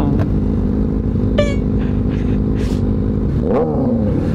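Yamaha R3 motorcycle's parallel-twin engine running steadily while riding; near the end its note drops and then climbs again.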